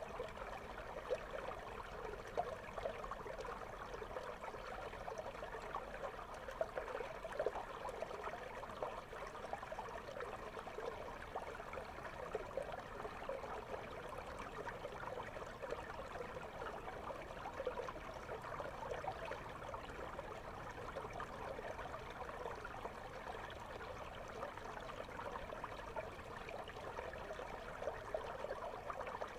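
Flowing water of a clear river heard through a submerged GoPro: a steady rush with many small bubbling crackles.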